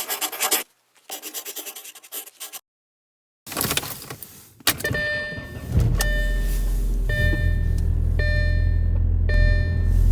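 Car being started: a few clicks and handling noises, then a warning chime beeping about once a second. The engine starts about six seconds in and idles with a steady low rumble.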